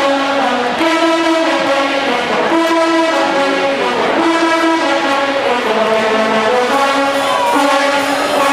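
Brass band playing a tune of long held notes, about one note a second.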